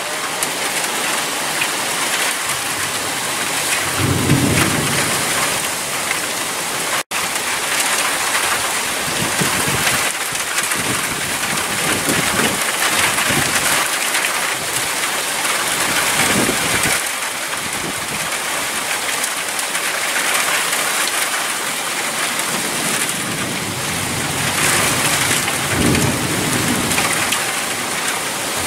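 Thunderstorm: heavy rain pouring steadily, with thunder rumbling about four seconds in and again near the end.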